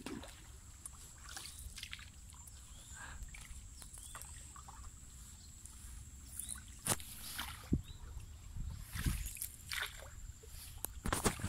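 Single wooden hand paddle dipping and pulling through still canal water from a small paddled boat: soft splashes and drips, with a few sharper knocks and splashes in the second half.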